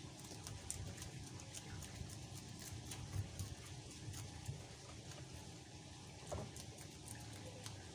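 Faint, irregular small clicks and scrapes of fish being cleaned by hand with a knife, over a low rumble.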